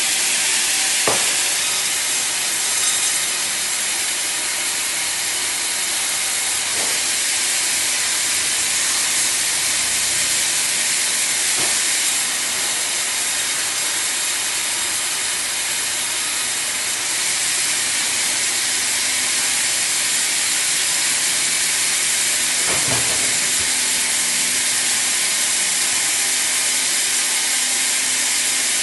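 Sawmill blade cutting a padouk log: a steady, high hiss that holds evenly throughout.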